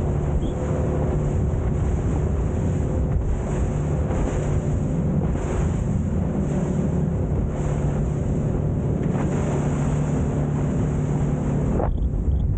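Boat engine running steadily under way, with wind buffeting the microphone and the rush of sea water.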